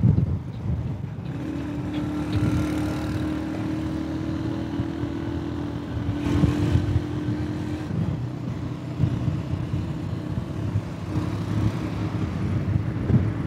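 Engine and road noise of a moving vehicle, heard from on board while riding through traffic. A steady higher hum joins from about a second and a half in until about eight seconds in.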